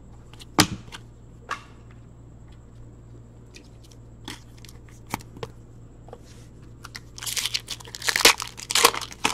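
A few light clicks of cards being handled, then, from about seven seconds in, a trading-card pack's wrapper crinkling and tearing as it is ripped open.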